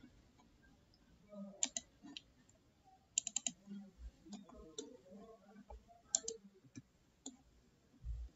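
Faint, scattered clicks of a computer mouse and keyboard, with a quick run of four clicks about three seconds in.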